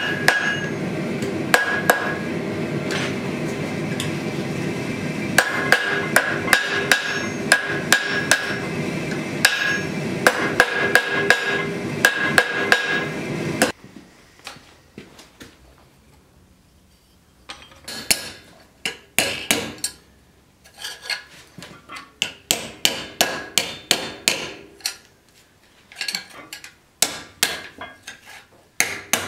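Hand hammer striking red-hot steel on an anvil in irregular blows, over a steady rushing noise that cuts off suddenly about halfway through. After a quiet few seconds, a small ball-peen hammer taps lightly on a small piece held on the anvil, in quick runs of taps.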